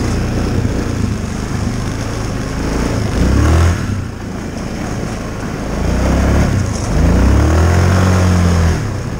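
Yamaha Kodiak 450 ATV's single-cylinder engine running while riding, revving up twice with the pitch rising and falling: briefly about three seconds in, then longer from about six to nine seconds.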